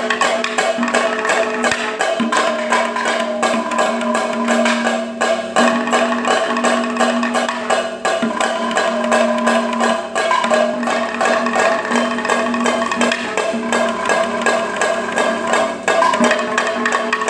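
Kerala percussion ensemble playing melappadam: chenda drums beaten fast with sticks and maddalam barrel drums struck with the hands, in a dense, unbroken stream of strokes. A steady ringing tone is held underneath.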